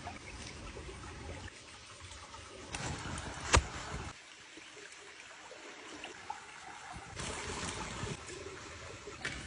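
Water trickling and splashing, with a louder stretch twice and one sharp knock about three and a half seconds in.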